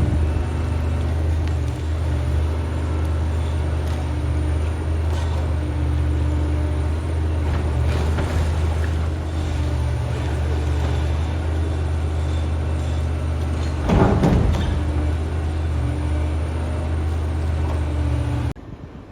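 The diesel engine of a large demolition excavator with a concrete-crusher attachment runs steadily under load. Its hum is broken by a few loud knocks of the jaws working concrete. The sound cuts off abruptly near the end.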